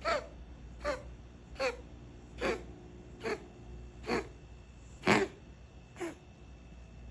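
Ragdoll cat coughing in a steady run of eight short coughs, about one every 0.8 seconds. Each cough has a brief tone that falls in pitch, and the loudest comes about five seconds in.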